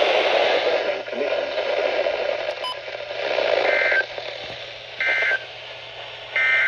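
Radio static hiss, then, starting about four seconds in, three short warbling data bursts about a second and a quarter apart. These are the Emergency Alert System end-of-message tones that close the extreme wind warning broadcast.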